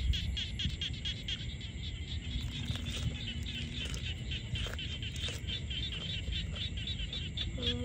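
An animal chirping over and over in a steady rhythm, about five chirps a second, over a constant low rumble.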